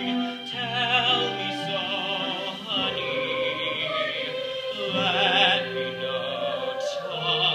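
A young male singer performing a musical-theatre number over instrumental accompaniment, with wavering vibrato on held notes about a second in and again about five seconds in.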